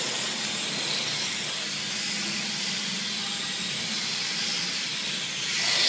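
Electric motor of a counter-steer RC drift car whining, its pitch rising and falling as the throttle is eased on and off, over a steady hiss. The whine swells near the end.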